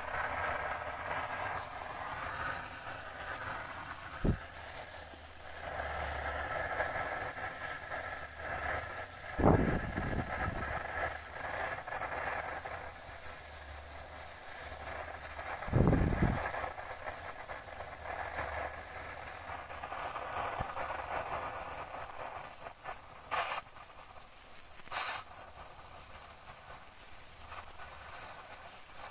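Gas blowtorch flame hissing steadily while it heats a clay crucible of molten metal, with three short dull low thumps along the way.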